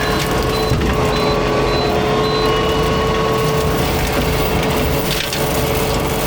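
Fecon forestry mulcher head grinding brush and small trees, wood crushing and splintering over the steady drone and whine of the machine.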